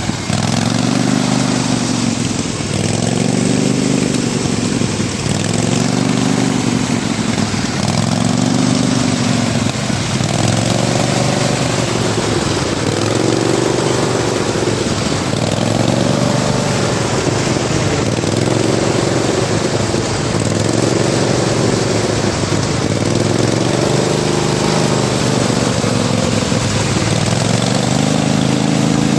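Riding lawnmower engine running continuously, its pitch rising and falling in a regular cycle about every one and a half to two seconds.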